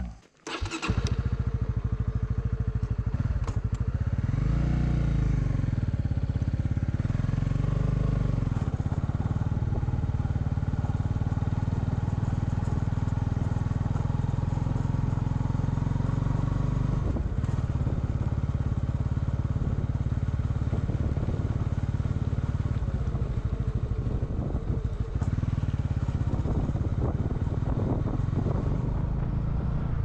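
Motorcycle engine running as it is ridden along a rough track, its revs swelling and dropping twice a few seconds in, then holding steady.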